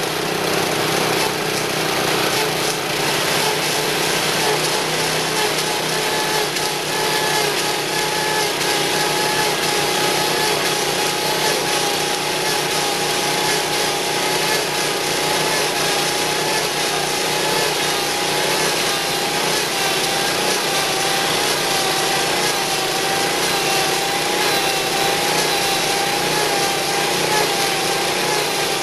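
Small engine running steadily on a trailer-mounted log turner and peeler, its cutter rasping bark off a turning log. A whining engine note wavers slightly in pitch under a continuous scraping, chip-throwing noise.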